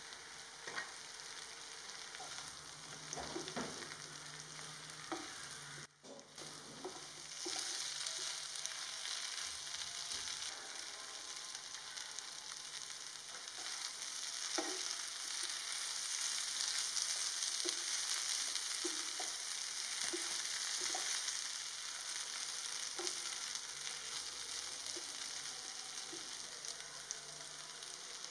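Chilli parotta, torn parotta pieces with capsicum and onion in oil, sizzling in a frying pan while a wooden spatula stirs it, with scattered light knocks of the spatula against the pan. The sizzle dips briefly about six seconds in, then is louder.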